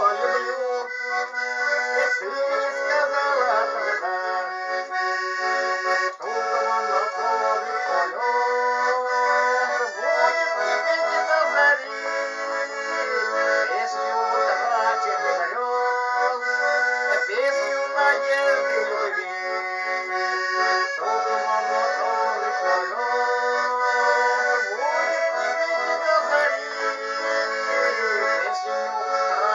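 Instrumental music with no singing: a melody played over sustained chords.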